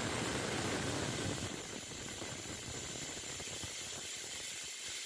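Pigeon pressure cooker's whistle weight lifting and venting steam in a steady hiss, a little stronger in the first second and a half. It is the cooker's first whistle, blowing off as the pressure reaches about 15 psi (1 kg/cm²).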